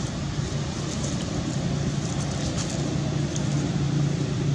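A steady low mechanical hum under a constant hiss, with a few faint ticks.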